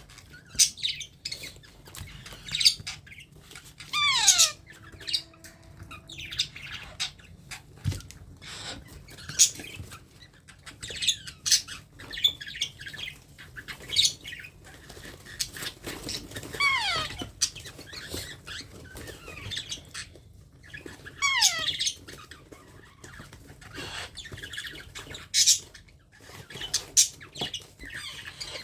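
A young parrot gives many short, harsh squawks throughout. About four seconds in, again around seventeen seconds and again around twenty-one seconds, it gives a longer call that falls steeply in pitch.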